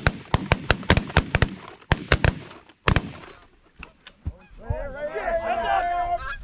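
Several shotguns fire a rapid volley of about a dozen shots over the first three seconds at a flock of Canada geese. Near the end, the geese honk many at once.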